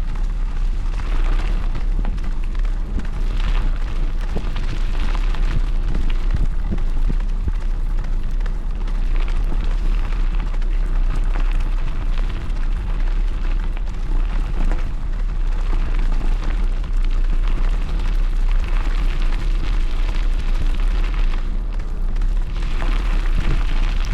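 Wind buffeting the microphone of a moving dog-pulled bike, with tyre and trail rumble: a loud, steady, low noise that does not let up.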